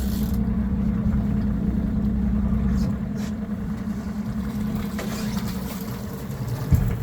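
Fishing boat's engine running steadily at low speed, a constant low hum, with a short knock just before the end.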